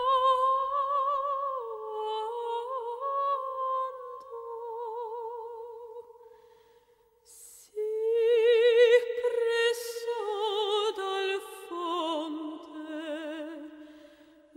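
A high solo voice singing a slow, sustained melody with wide vibrato, with no audible accompaniment. It breaks off about halfway through and comes back louder, holding long notes.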